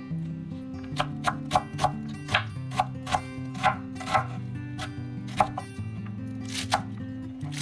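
Knife slicing an onion on a wooden cutting board: a quick, uneven run of sharp chops, then a few more spaced out near the end, over background acoustic guitar music.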